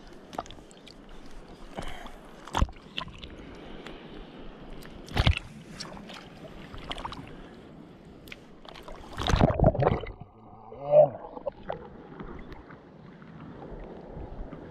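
Small waves lapping at the shoreline, with scattered sharp knocks and a louder rushing splash about nine seconds in.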